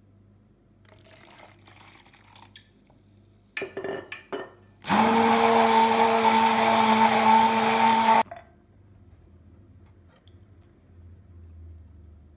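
Electric blender motor running at full speed for about three seconds with a steady whine, then cutting off: lemon juice being blended into puréed strawberries. A few clatters and knocks come just before it starts.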